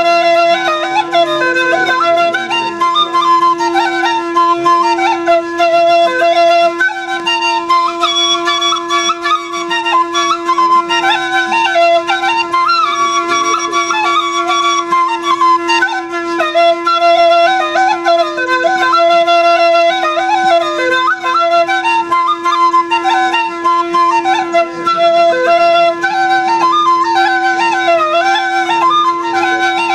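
Alghoza, the Sindhi paired double flute, playing a winding folk melody on one pipe over a steady unbroken drone from the other.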